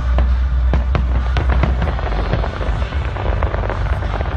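Aerial fireworks bursting: a rapid, irregular run of sharp cracks and pops over a steady low rumble.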